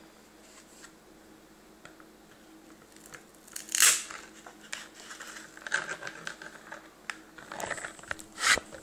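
Kydex knife sheath being handled: stiff plastic scraping and rubbing as the bushcraft knife and its firesteel are worked in and out of it. The loudest scrape comes about four seconds in, and another comes near the end.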